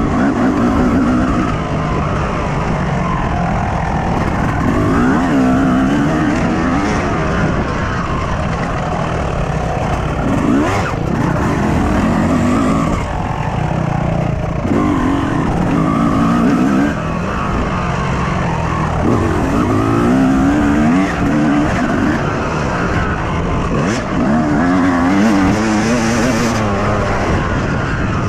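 Yamaha YZ250 single-cylinder two-stroke motocross engine, heard on board, revving hard and backing off again and again. The pitch rises with each pull on the throttle and drops as the rider shuts off for turns.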